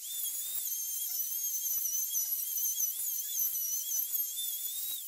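Plunge router fitted with a large-diameter 1-inch straight bit, starting suddenly and running at speed with a high whine that wavers slightly in pitch as it cuts into walnut.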